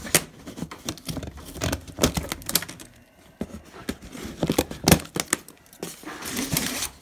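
Cardboard shipping box being cut open and unpacked: packing tape slit and torn, cardboard and packing material crinkling, with irregular sharp knocks and clicks throughout.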